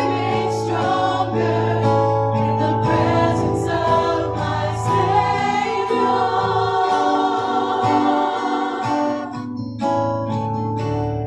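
Live contemporary worship song: women's voices singing together in sustained phrases over guitar accompaniment, heard from among the congregation in a church hall.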